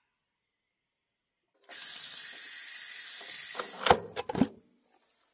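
Steam hissing hard and steadily out of a multicooker's pressure-release valve as the pressure is let off after pressure cooking; it breaks off after about two seconds. A few sharp plastic clunks follow as the pressure lid is twisted and lifted.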